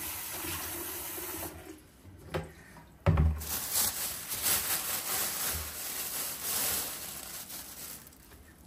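Kitchen tap running into a bowl of soaking greens, shut off about a second and a half in. About three seconds in there is a thump, then a thin plastic bag crinkling and rustling as it is handled.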